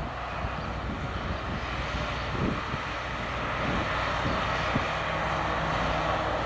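Engines of several sports cars, mostly Ferraris, lapping a race circuit, heard at a distance and slowly getting louder as they approach.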